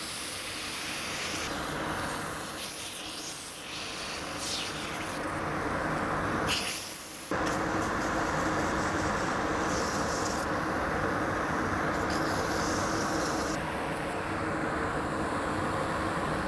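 HME Union Student wood lathe running with abrasive paper held against the spinning wooden spindle: a steady hiss of sanding over the lathe's running noise. The sound dips briefly about seven seconds in, then carries on a little louder.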